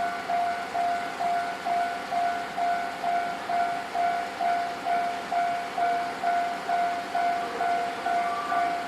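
Japanese railway level-crossing warning bell ringing, a clanging tone of steady pitch repeating about twice a second, with fainter higher ringing tones above it.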